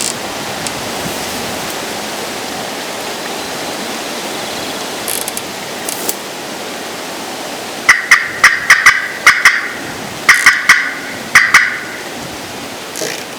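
Turkey gobbles: several rattling gobbles in quick succession beginning about eight seconds in, loud and close. Steady wind noise fills the first part.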